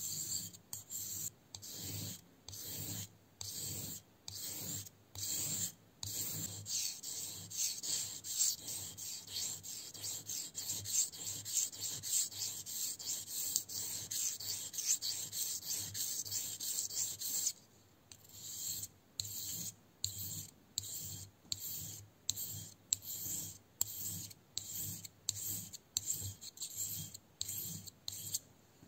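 Grafting knife blade being stroked by hand across a wet whetstone, a rhythmic gritty scraping. The strokes come about once a second at first, quicken to about three a second from about six seconds in, and slow again near the eighteen-second mark.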